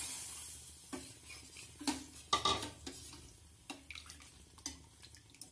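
Water poured from a bowl into a stainless steel pot of rasam, then a steel ladle stirring it and clinking against the pot's side several times.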